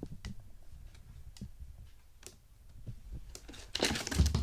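Scattered light clicks and taps of kittens moving about on a small tabletop, then a louder brushing rustle from about three and a half seconds in, as a hand comes in close to a kitten.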